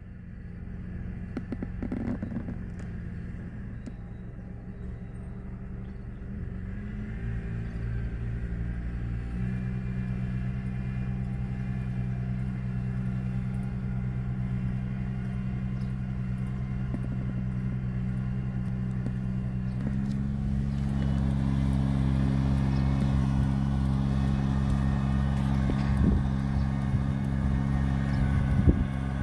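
Farm machinery engine running steadily. Its note shifts a couple of times and then grows louder, with a harsher tone, about two-thirds of the way through.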